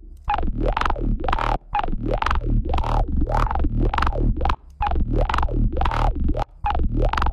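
A glitchy electronic synth loop with a pulsing bass plays through the FabFilter Volcano 3 filter plug-in while its resonant peak filters are dragged around, so a ringing tone sweeps up and down through the rhythmic hits. The loop cuts out briefly twice.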